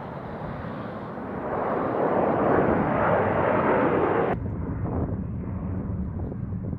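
Jet engines of a large air-refuelling tanker climbing out after takeoff, a broad roar that swells to its loudest a couple of seconds in. It cuts off abruptly a little past four seconds, giving way to a duller, quieter rumble of distant jets.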